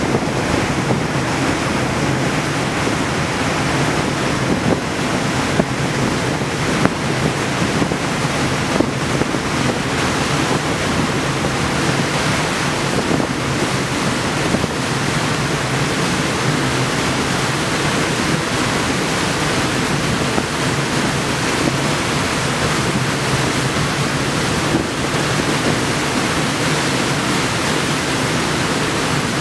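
Steady rushing noise of wind on the microphone and sea water, unchanging throughout.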